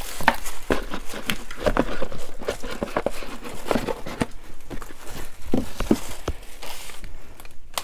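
Handling noise: irregular light knocks and taps, with some rustling, as packaged items are moved about and lifted out of a box.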